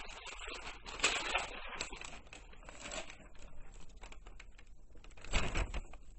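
Irregular crinkling and rustling handling noise, with a louder bump about five seconds in.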